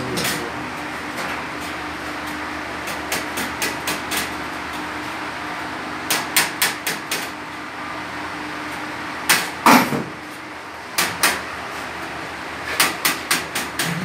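Sharp metallic-sounding knocks in quick clusters of two to five, like hammer blows, the loudest pair a little before the middle, over a steady mechanical hum.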